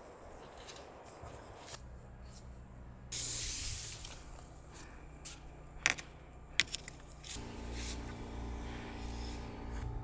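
Gloved hands handling PVC conduit and fittings in a dirt trench: scraping and rustling, a brief hiss about three seconds in, and a couple of sharp clicks. From about seven seconds on, a low steady hum joins in.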